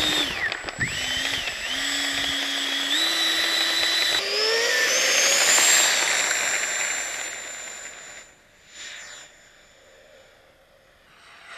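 Electric ducted fan of an F-16 model RC jet whining, stepping down and up in pitch at low throttle. About four seconds in it is throttled up into a steeply rising high whine for the takeoff run, then fades away as the jet climbs out.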